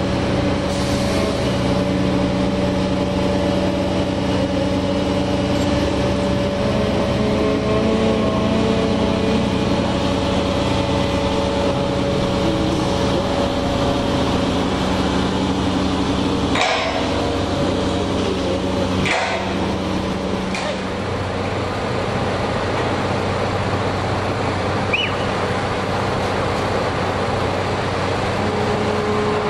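Diesel engine of an excavator running steadily at idle, with two short metallic knocks about two-thirds of the way through.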